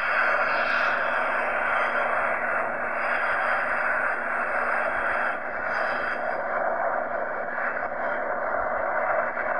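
Jet engines of a twin-engine widebody airliner running at takeoff power during the takeoff roll, heard from a distance as a steady, unbroken roar.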